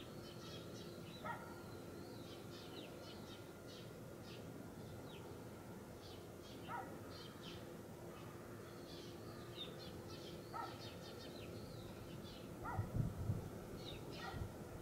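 Many small birds chirping, with a lower short call repeating about every four seconds and a steady faint hum underneath. A low thump about thirteen seconds in is the loudest moment.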